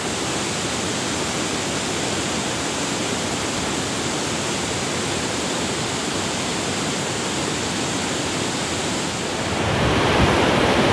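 Steady rush of water from a mountain waterfall, a dense even hiss with no break. A low rumble swells in near the end.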